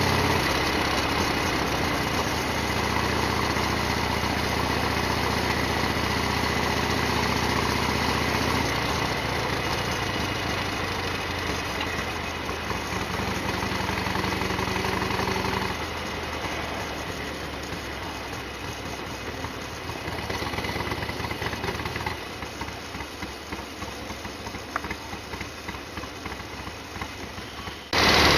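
Harley-Davidson Sportster XL1200R's air-cooled V-twin engine running, its sound growing quieter in steps, then suddenly louder near the end.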